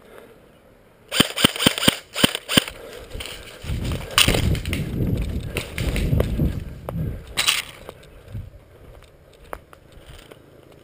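Paintball marker firing a quick string of about seven shots, followed by a few seconds of low rumbling movement noise as the player runs along a brushy trail, then one more sharp shot.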